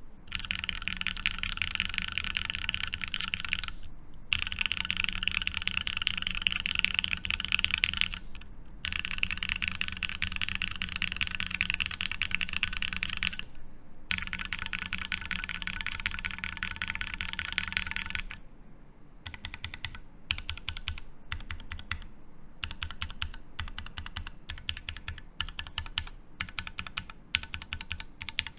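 Typing on a Savage65 mechanical keyboard with lubed Okomochi switches, an FR4 plate and GMK Tofu keycaps: four runs of fast, continuous keystrokes with short pauses between them, then slower, separate key presses for the last ten seconds or so.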